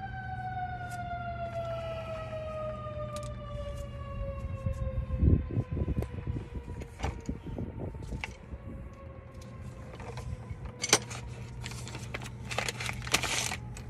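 A siren sounding, one long tone that slowly falls in pitch. Knocks and clatters of work on the brake come in about five seconds in and again near the end.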